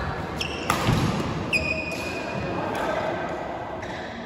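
Play on an indoor court in a large hall: a sharp hit about three quarters of a second in and a few short squeaks, over a steady murmur of voices.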